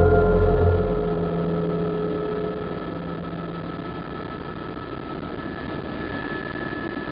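Helicopter in flight heard from inside the cabin: a steady drone of engine and rotors with a thin, steady high whine. Background music fades out in the first couple of seconds.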